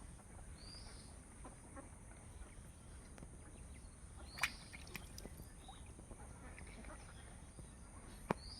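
Faint bird calls: three short, high chirps about four seconds apart, with two sharp clicks, over a steady high-pitched hiss.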